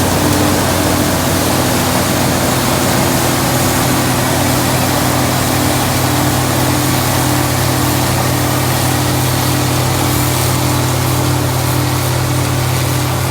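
Case IH 1660 combine with its 8.3-litre turbo diesel running steadily under harvest load, a constant low engine hum under a loud, even machinery rush.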